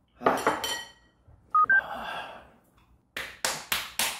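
A hard breath, then a short two-note electronic beep, then four sharp slaps in quick succession, about a quarter second apart, as a man slaps himself to pull himself together after the spicy noodles.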